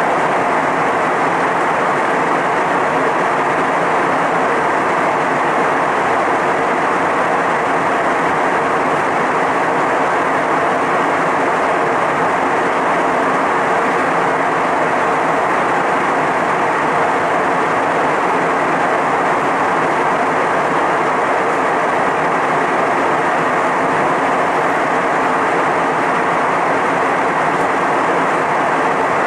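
Jet airliner cabin noise in cruise: a steady, even rush of airflow and engine noise heard from inside the cabin at a window seat, with no change in level.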